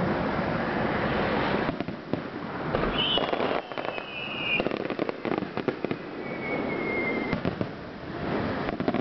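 Aerial firework shells bursting, with dense continuous crackling. About three seconds in a whistle falls in pitch, and a fainter whistle follows around six to seven seconds in.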